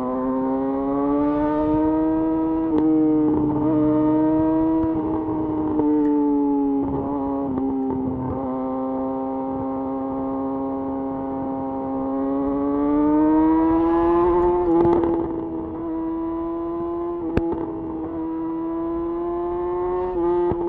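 Yamaha YZF R6's inline-four engine through a de-catted Akrapovic slip-on exhaust, cruising with revs that rise and fall gently with the throttle, easing off briefly twice. A single sharp click near the end.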